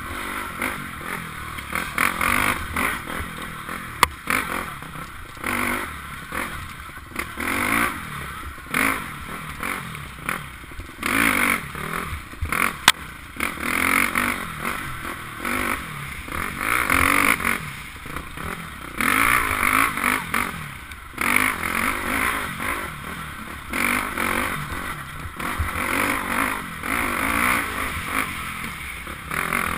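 KTM 250 enduro dirt bike engine revving hard and backing off every second or two as the throttle is worked along a woods trail, heard through a helmet-mounted camera. Two sharp knocks stand out, one about four seconds in and another near the middle.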